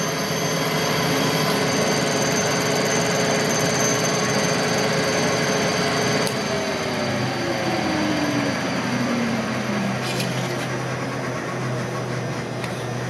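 Milling machine cutting inside a flange's bore with a solid carbide, titanium-nitride-coated end mill, a steady machining noise. About six seconds in the cut stops and a whine falls steadily in pitch as the spindle slows down. Near the end a brush scratches across the chips.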